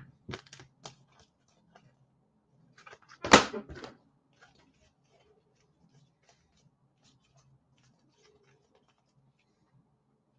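Soft scattered clicks and rustles of trading cards and card holders being handled and sorted on a desk, with one much louder knock a little over three seconds in.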